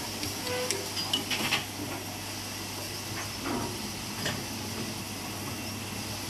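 Steady hiss with a low hum under it as a steam locomotive's tender is filled from a water column, with a few light metallic clinks about a second in and again past four seconds.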